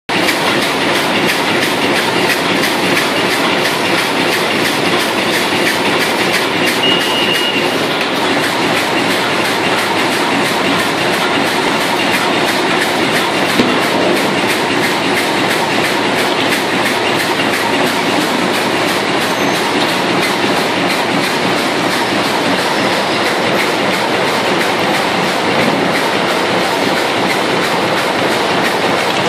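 HSLJ-450X2 high-speed bag-on-roll vegetable bag making machine running at production speed: a loud, steady, rapid mechanical clatter.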